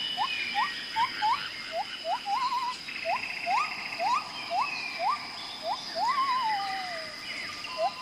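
Bird calls: a quick series of short, rising whistled notes, about two a second, with a longer wavering call that falls in pitch about six seconds in. A steady high-pitched tone runs underneath.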